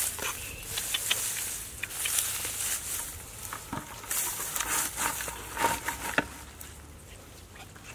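Dry grass and straw rustling and crackling as hands pull it apart, with irregular wet splashes and squelches from a shallow muddy-water fish trap.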